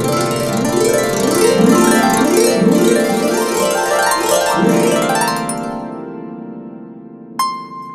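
Paraguayan harp played in fast plucked runs, then a low chord that rings on and slowly fades. A single bright ringing high note is struck near the end.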